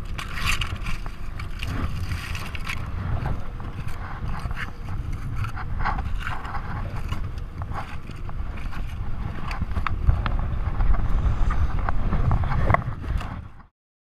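Steady low rumble of a small boat with wind on the microphone, overlaid by scattered clicks and scrapes. It cuts off suddenly near the end.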